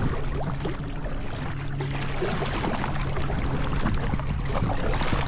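Water splashing and dripping around a kayak as it is paddled on the sea, in irregular small splashes. A steady low hum runs underneath.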